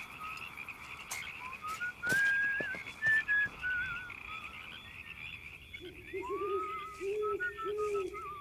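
Night ambience of frogs croaking and chirring, with a wavering whistle-like tune drifting over it. From about six seconds in, a lower croaking note repeats several times.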